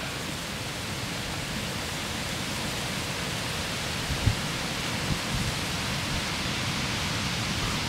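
Wind buffeting the camera's microphone: a steady rushing hiss with a gusty low rumble underneath, and a brief low thump about four seconds in.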